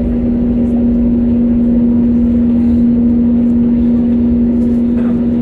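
Cabin noise in an Airbus A320neo on the ground just after landing: a steady engine drone with a strong hum over a low rumble.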